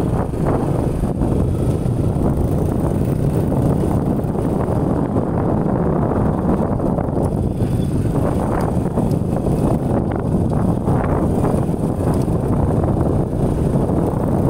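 Steady rumble of wind buffeting the microphone on a moving motorcycle, mixed with the motorcycle's running noise as it rides along a dirt track.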